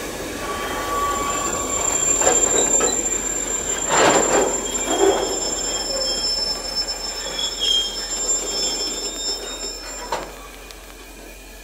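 Empty coal-train wagons' steel wheels squealing against the rail on a curve: two steady high-pitched squeals held for several seconds, broken by clanks and knocks, the loudest about four seconds in. The sound drops away about a second before the end.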